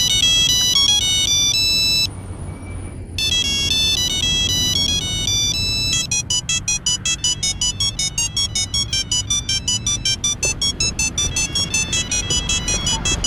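Mobile phone ringtone melodies played in electronic beeping tones. After a short break about two seconds in, the tune resumes, and about six seconds in a fast, even pulsing beep pattern takes over at about five pulses a second.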